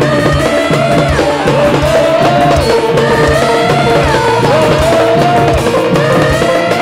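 A chorus of Javanese sinden (female singers) singing together, holding long notes that glide from pitch to pitch, over gamelan accompaniment with steady kendang drum strokes.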